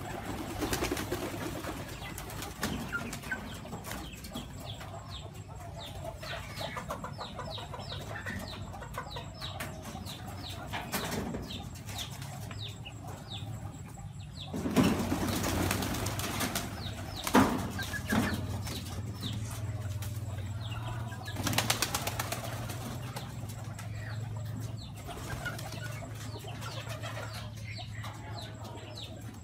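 Domestic pigeons feeding in a flock: several bursts of wing flapping, the longest and loudest about halfway through, with soft cooing between them.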